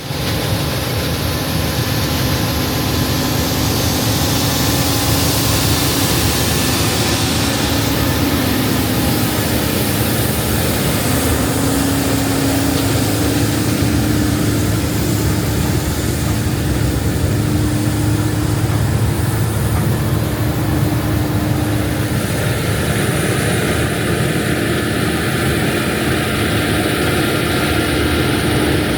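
Large diesel harvest machinery running steadily in a field: a loud, constant engine drone with faint tones that drift slowly up and down.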